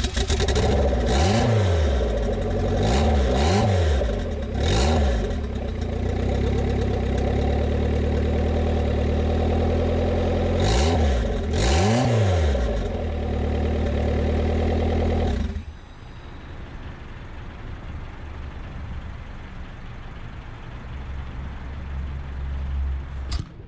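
Turbocharged Honda Civic four-cylinder engine running on its first start after the build, revved in five quick throttle blips, then shut off about 15 seconds in.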